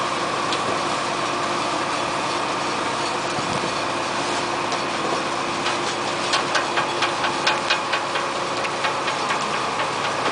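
Leek harvester's machinery running steadily as it moves through the field. From about halfway through, a rapid run of sharp clacks, about four a second, lasts several seconds and then stops.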